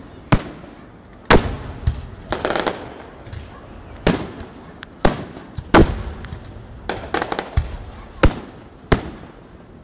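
Aerial fireworks display: about a dozen sharp bangs from shells bursting overhead at irregular intervals, each trailing off in a short echo.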